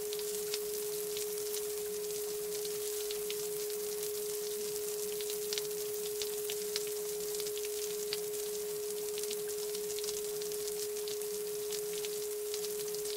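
A steady mid-pitched pure sine tone held without change, over a faint hiss with scattered tiny ticks.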